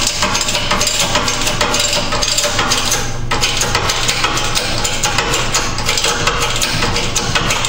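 Background music with a steady, dense beat.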